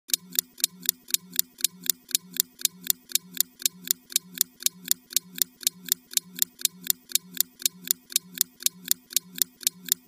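Timer ticking: sharp, even ticks, about four a second.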